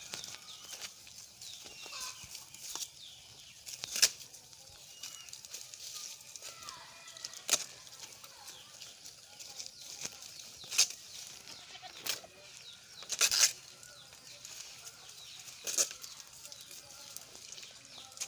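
Outdoor farm sounds: short, sharp rustling or crackling noises every second or few, about half a dozen in all, over a hissing background with faint bird chirps.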